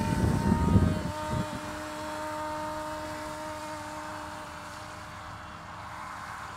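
Elektro-UHU electric RC motor glider's motor and propeller running steadily as it climbs out after a hand launch: a steady whine that slowly fades as the plane flies off. Wind buffets the microphone during the first second.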